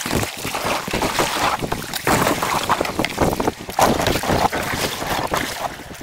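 Canoe paddling on a river: uneven splashes of paddle strokes and water washing along the hull, with wind buffeting the microphone.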